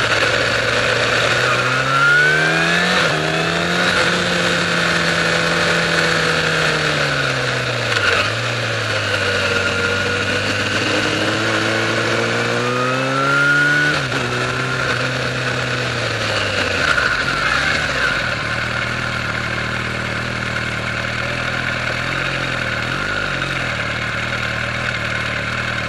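A 2007 Yamaha FZ1's inline-four engine, its note climbing as the bike accelerates and dropping as it eases off, twice. For the last several seconds it holds a steady lower note.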